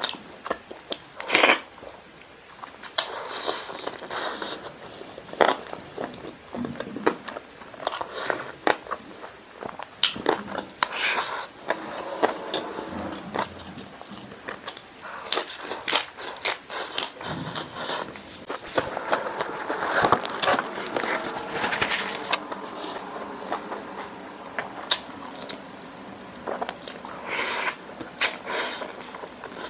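A person biting and chewing spicy chicken wings and leg pieces, pulling the meat off the bone by hand, with many short, irregular smacking clicks.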